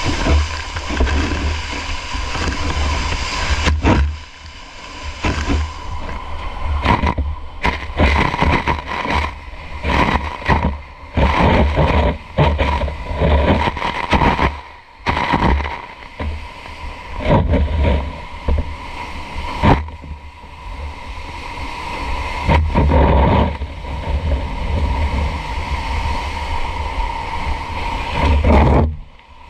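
Loud rushing noise that rises and falls in irregular gusts, with a heavy low rumble on the microphone and a faint steady high tone beneath.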